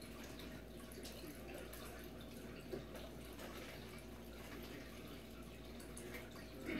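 Small aquarium's water circulating with a faint, steady trickle and drip. A short louder sound comes right at the end.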